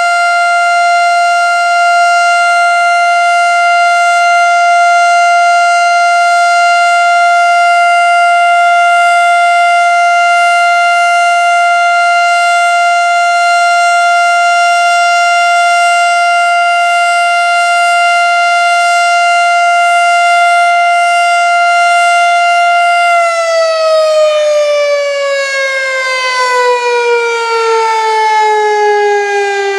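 Federal Signal STH-10A mechanical outdoor warning siren sounding its steady alert tone, then about 23 seconds in starting to wind down, the pitch falling steadily as the rotor slows at the end of the alert cycle.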